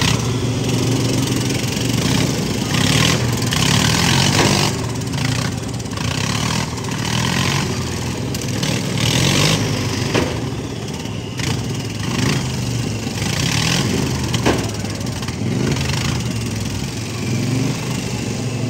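Modified riding lawn mower engines running and revving unevenly, their pitch rising and falling, with short hissing bursts every few seconds.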